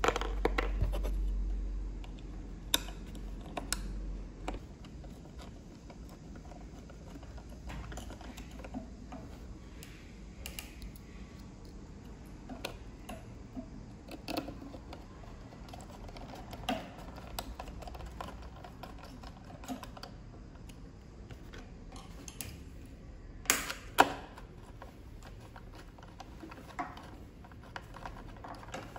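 Small screws being driven with a hand screwdriver into the metal heat-sink cover of a drone's ESC: scattered light clicks and taps from the driver tip and parts, with two sharper clicks about three-quarters of the way through. A low rumble of handling in the first few seconds.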